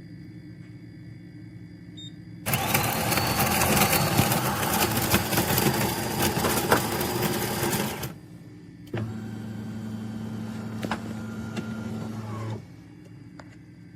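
De'Longhi Rivelia automatic espresso machine running. First comes a loud, noisy stretch of about five seconds, then, after a short pause, a steadier hum for about three and a half seconds.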